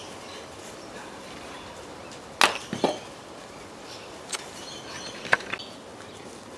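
Arrow shot from a homemade PVC slingbow at a foam archery target: a loud sharp crack about two seconds in and a second about half a second later, then a few lighter ticks. Small birds chirp faintly in the background.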